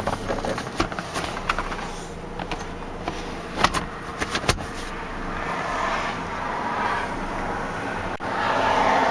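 Camera handling noise: rustling and rubbing against the car's leather seats as the camera is moved around the cabin, with a few sharp clicks and knocks.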